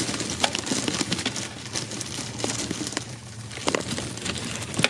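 Plastic crinkling and rustling with scattered clicks as feeder crickets are shaken out of their container into a gecko enclosure.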